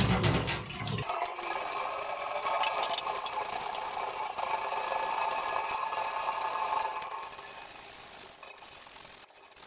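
Water running in a laundry sink. The heavier low rush stops about a second in, leaving a lighter water hiss that fades toward the end.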